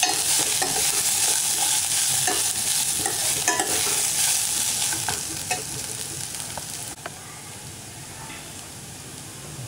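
Oil sizzling as fresh peanuts, onions and dried red chillies are stirred and sautéed in a stainless steel pot, with a metal spoon scraping and clinking against the pot. About seven seconds in, the sizzle drops suddenly to a quieter hiss.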